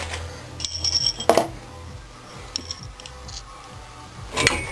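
Metal hand tools clinking and knocking against the engine while work on the cylinder head bolts begins: a few sharp metallic strikes, one followed by a brief high ring, with lighter ticks between.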